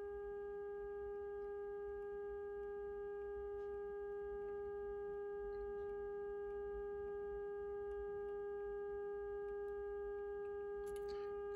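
Steady test tone with overtones from the loudspeaker of a Northern Electric Model 5000 tube radio. It is the signal generator's modulation tone coming through the set while its IF transformers are being peaked during alignment.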